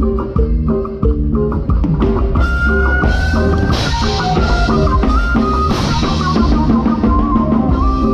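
Live band playing: a drum kit keeping a steady beat under bass guitar and a held melody line, with two cymbal crashes about four and six seconds in.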